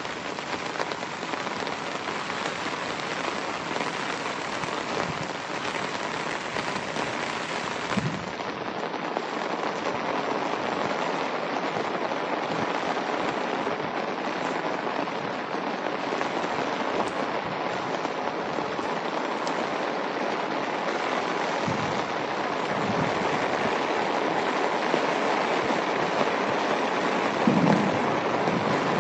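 Steady medium-to-heavy rain falling on a wet dirt track and grass, growing slightly louder over time. There are a couple of brief low thumps, one about eight seconds in and one near the end.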